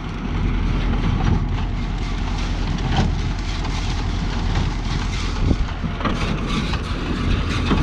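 Tractor engine running steadily while it drives a New Holland 68 baler, with a few sharp clanks from the baler's mechanism about three and five to six seconds in.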